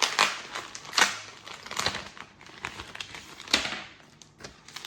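Plastic packaging crinkling and rustling as small accessories are handled and pulled from their bags, in several sharp crackles with lighter ticks between.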